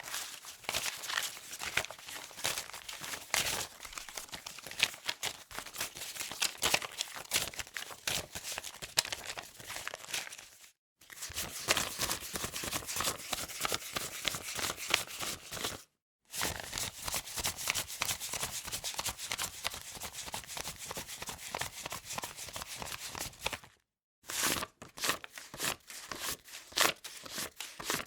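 Paper money bills being handled and crinkled: a dense run of crisp rustles and snaps, broken three times by short silent cuts between takes.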